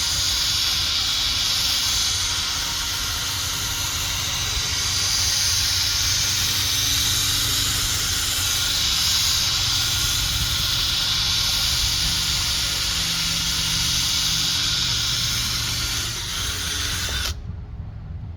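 Drill-driven polishing pad spinning against a plastic headlight lens, a steady whirring hiss that cuts off abruptly near the end.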